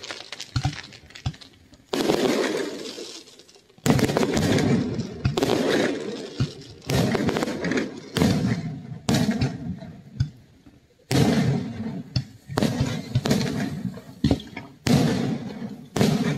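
Aerial firework shells bursting in quick succession, about a dozen sharp booms, each one trailing off over a second or so.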